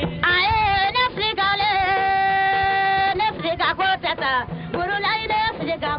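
A song: a solo voice sings over music, holding one long steady note from about a second and a half in until about three seconds in, then going on in short wavering phrases.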